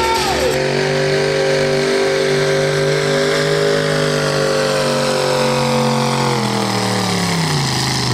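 Pulling pickup truck's engine running flat out under load while it drags the weight sled, its note held steady. About six seconds in, the revs fall away as the truck slows and the pull comes to an end.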